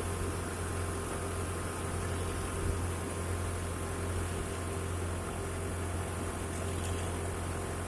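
Heavy diesel engine of a concrete mixer truck running steadily, a constant low drone with a steady hum above it.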